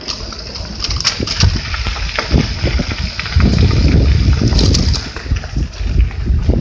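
Wind buffeting the microphone while riding a bicycle, with the rumble of tyres rolling over the trail and scattered rattles and clicks from the bike. It grows louder about halfway through.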